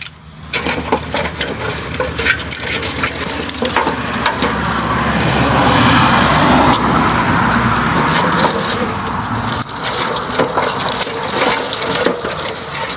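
Firewood and dry brush being handled and piled up for an unlit bonfire: repeated cracks, snaps and knocks of wood. A broad rushing noise swells and fades in the middle.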